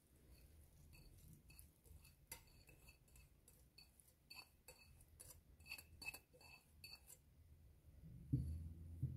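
Faint, scattered clinks and ticks as cooked rice is pushed by hand out of a ceramic bowl tipped against an aluminium pot. Near the end come a couple of soft, low thumps as a hand pats the rice down in the pot.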